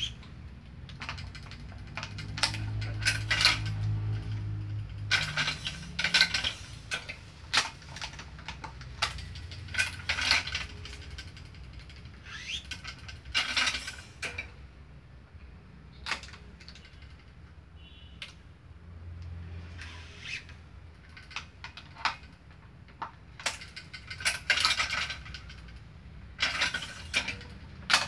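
Badminton racket being strung on a stringing machine: irregular sharp metallic clicks and clacks from the string clamps and tension head as each string is pulled and clamped. A low hum comes in twice, a few seconds in and again about two-thirds of the way through.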